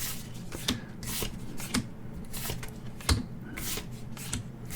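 Pokémon trading cards from a freshly opened booster pack being slid off one another one at a time: a soft swish about every half second, with a sharper tap about three seconds in.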